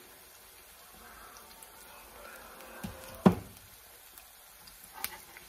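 Oil frying faintly around a floured egg in a cast iron skillet. About three seconds in, a metal spatula knocks hard against the skillet with a short ring, after a smaller tap. A couple of lighter clicks come near the end.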